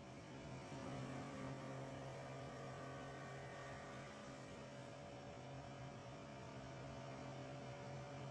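CNC wood-turning lathe running: a steady electric hum from its drive, with a faint even hiss while its cutters shape two spinning wooden blanks. It gets slightly louder about a second in.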